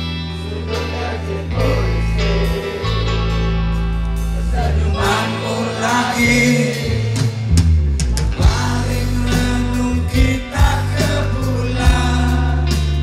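Live rock band playing with electric guitars, bass and drums, with singing over it; the drum hits grow sharper and more frequent in the second half.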